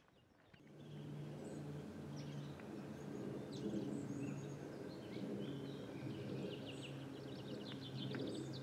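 Small birds singing in woodland, scattered high chirps and near the end a rapid trill of repeated notes, over a steady low hum.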